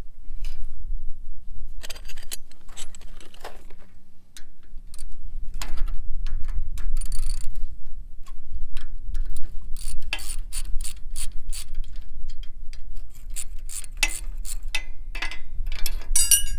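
Socket ratchet wrench clicking in repeated runs as it backs the nuts off the rusty knife sections of a sickle bar mower, with metal clinks of the loose sections and nuts being handled.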